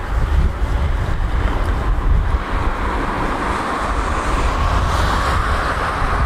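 Wind buffeting the microphone, with the distant hiss of a Boeing 767's jet engines as it taxis. The engine hiss grows louder from about halfway through.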